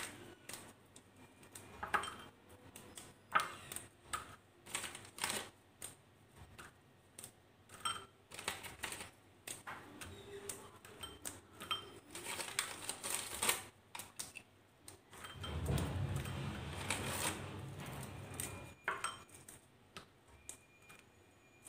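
Oreo cookies being snapped apart by hand into small pieces: irregular sharp cracks and small clicks as the pieces drop into a glass bowl, with a longer, denser stretch of handling noise about two-thirds through.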